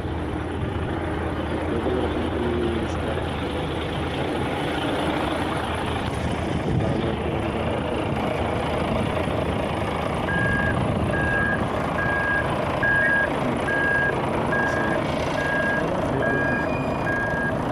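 Vehicle reversing alarm beeping at a steady pace, a little more than once a second, starting about ten seconds in over a steady rumble of construction-site noise.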